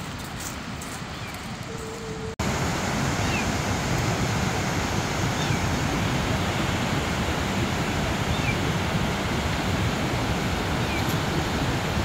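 Footsteps on a dirt trail, then, after a sudden cut about two and a half seconds in, the steady rushing of a cascading waterfall, with a few faint high chirps over it.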